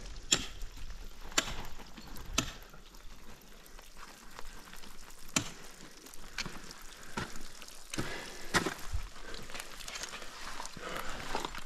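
Ice axes and crampons striking water ice: a run of sharp, irregular knocks, each on its own, roughly one every second or so.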